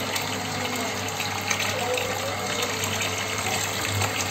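Water pouring steadily into a goldfish tank, over a steady low hum.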